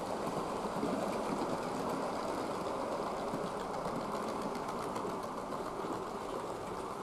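A kit-built model locomotive and its train of coaches running on the layout's track: a steady whirr from the DJH motor-and-gearbox unit, mixed with the wheels rolling over the rails and faint rapid clicks.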